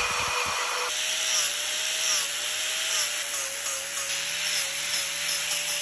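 A die grinder with a sanding bit grinding the wood; after about a second a DeWalt angle grinder takes over, its whine wavering in pitch as it grinds the wood.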